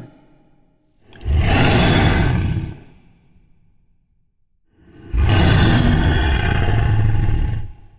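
Two monster roar sound effects, deep and rough, as used in horror and giant-monster films. A shorter roar starts about a second in and a longer one about five seconds in, each cutting off fairly sharply.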